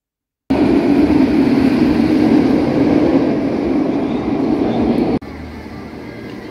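Roller coaster train rumbling along its steel track: a loud, steady rumble that starts suddenly about half a second in and cuts off just after five seconds, leaving quieter background noise.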